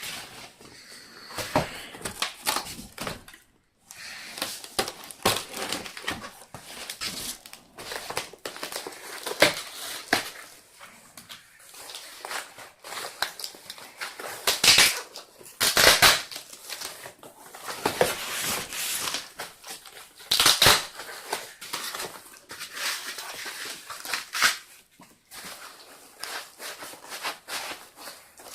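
Packaging being opened and unwrapped by hand: irregular crinkling, rustling and crushing with short scrapes and knocks, louder handful by handful.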